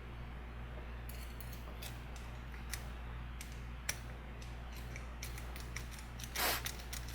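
Light metallic clicks and scrapes of a Sparrows Sandman pick working the pin tumblers inside a Master Lock No. 5 padlock under tension, over a steady low hum. The pins are rebinding as he picks.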